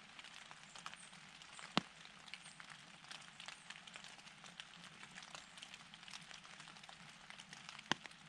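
Faint woodland ambience: a soft hiss with a light, scattered patter of tiny ticks. Two sharp clicks stand out, one about two seconds in and one near the end.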